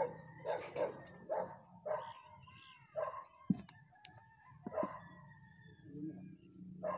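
Several short animal calls at uneven intervals, with a single sharp knock about three and a half seconds in.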